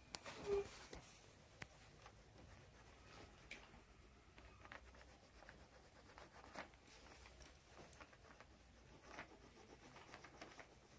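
Faint scratching of colouring strokes on paper, with scattered light clicks and taps. There is a brief louder blip about half a second in.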